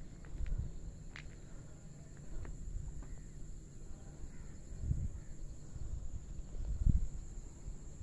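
Wind rumbling on a phone microphone and dull thumps of footsteps, the loudest about five and seven seconds in, over a steady high drone of insects.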